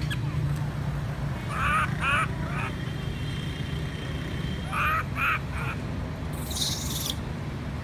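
Young macaque crying: two sets of three short calls, one set about a second and a half in and another about five seconds in, over a steady low hum.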